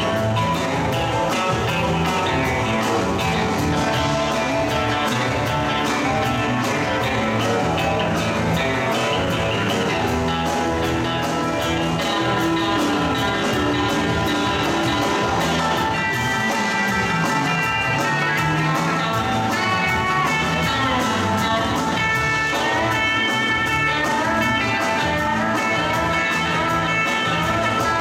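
Live rock band playing an instrumental passage: electric guitars trading lead lines over bass guitar and drums, the lead moving up into higher notes about halfway through.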